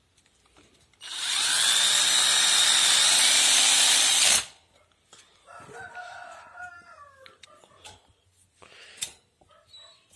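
Cordless drill running in one steady burst of about three seconds, working a screw at a floor fan's motor hub, then cutting off. After it come fainter short squeaks and knocks, with one sharper knock near the end.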